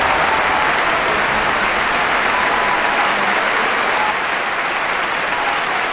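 A large auditorium audience applauding steadily, a dense even clapping that drops a little in level about four seconds in.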